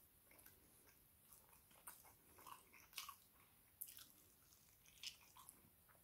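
Faint, wet chewing and lip-smacking of a person eating soft, sticky barbecue-sauced chicken wings, with no crunch. Short, sharp mouth smacks come about two, three, four and five seconds in.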